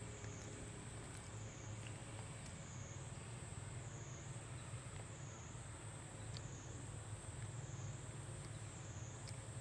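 Steady high-pitched insect drone that rises and falls in pitch about once a second, over a low steady rumble, with a few faint clicks.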